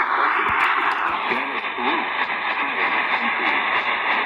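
Weather alert radio broadcast with a voice reading the alert, half buried under heavy static hiss. A faint steady tone joins the noise about a second in.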